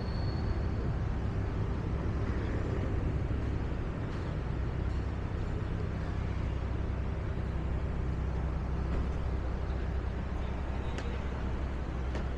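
Steady low rumble of road traffic on a busy city street, with a single brief click about eleven seconds in.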